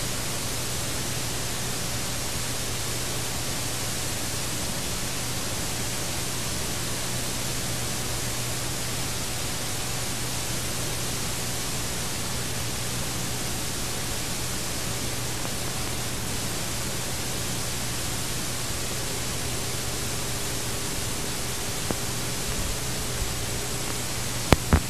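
Steady tape hiss with a low hum from a VHS tape playing a blank stretch, with a few sharp clicks near the end as the picture drops to the VCR's blue screen.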